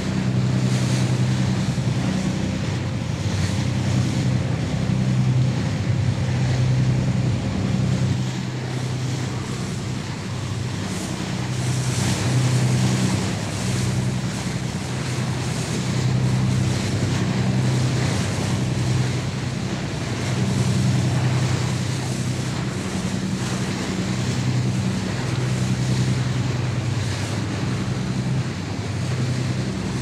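Lifeboat running at sea: a steady low engine drone over the wash of waves and wind noise.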